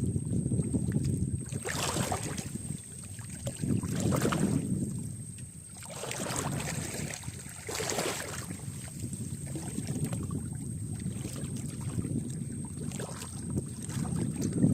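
Wind rumbling on the microphone in uneven gusts, with water lapping and splashing around a small boat on the river.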